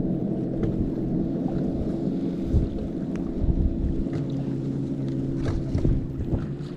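Boat motor running steadily, a low hum of several even tones, with a few short low thumps about two and a half to four seconds in.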